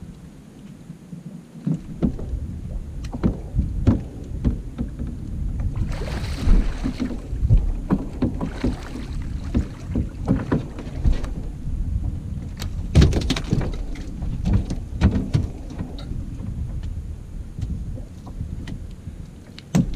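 Wind rumbling on the microphone and water slapping against a small open boat, with repeated knocks and thuds on the hull as a conger eel is hauled over the side and aboard. A rushing splash about six seconds in.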